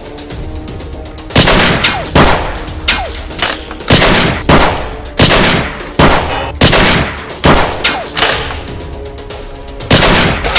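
Gunfire sound effects over background music: about a dozen loud single shots roughly half a second apart, starting about a second and a half in, then a pause and one last shot near the end.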